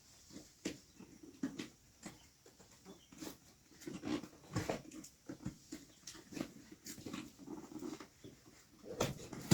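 Cardboard box and packaging being handled and opened by hand: scattered rustles, scrapes and short knocks, busiest from about four seconds in.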